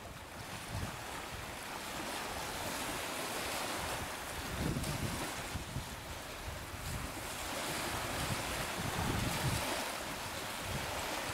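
Strong wind buffeting the microphone in gusts, a low rumble swelling several times, over a steady hiss of wind-driven waves on choppy water.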